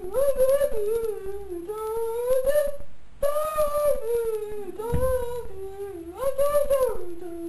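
A boy humming a wordless tune in long, wavering held notes, with a short break about three seconds in.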